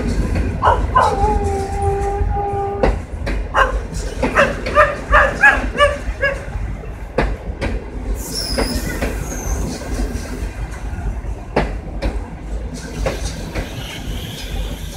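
Passenger train arriving at a station platform and slowing: a low rumble with wheels clicking and a held squeal, typical of brakes, in the first few seconds, and another short high squeal later. A dog barks in a quick run of several barks about four to six seconds in, the loudest sound here.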